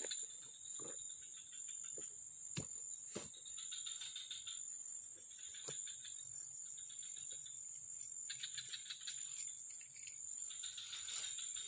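Insects in a steady high-pitched drone, with stretches of rapid chirping trills coming and going, and a few sharp clicks.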